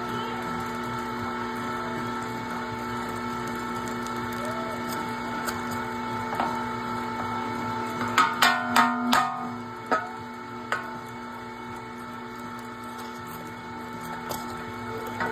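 Electric meat grinder running steadily, a hum with a higher whine, as ground venison is pushed out of its stuffing tube into a freezer bag. About eight seconds in, a quick run of sharp clicks, the loudest sounds here, with a few single clicks after.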